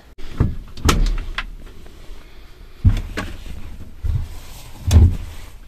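Laundry being handled in the drum of a front-loading washing machine: cloth rustling and several dull thumps and knocks against the drum and door, the loudest about five seconds in.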